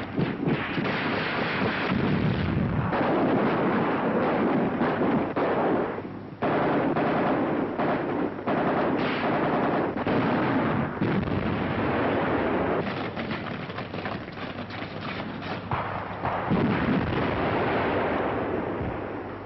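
Heavy weapons firing in battle: a dense, continuous run of gunshots and shell explosions, with a brief lull about six seconds in.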